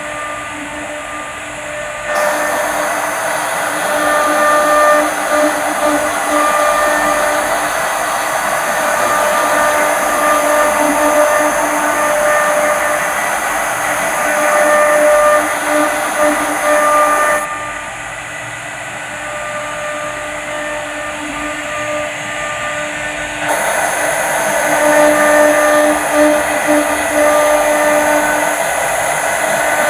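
Multi-spindle CNC router carving relief panels in wood: the spindles run with a steady whine while the carving bits cut, adding a rough cutting noise. The cutting noise drops back for several seconds about two-thirds of the way through, then picks up again.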